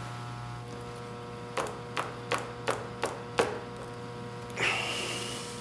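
A game piece tapped six times along the spaces of a paper game board, about three taps a second, over a steady low hum. Near the end comes a short, louder swish that fades.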